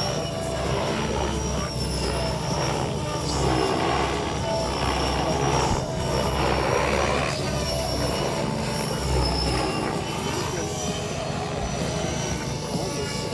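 Radio-controlled model helicopter flying overhead, a steady high whine from its engine and rotors that wavers up and down in pitch as it manoeuvres.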